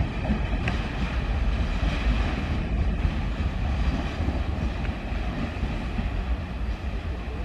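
Freight train of loaded LPG tank wagons running along the track: a steady, even rumble without distinct wheel beats.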